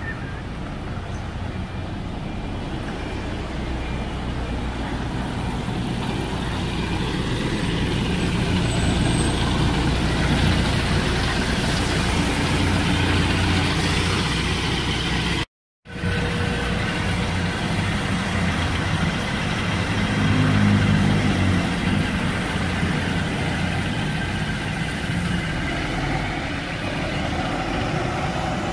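Buses' engines running as they drive past, the sound building to its loudest about ten to fourteen seconds in. It cuts off abruptly just past the middle, then resumes with another vehicle's engine, loudest about twenty seconds in.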